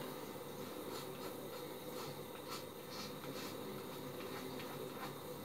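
Faint scratching of a three-bladed cartridge razor drawn over a gel-lathered scalp in several short strokes, cutting through hair growth.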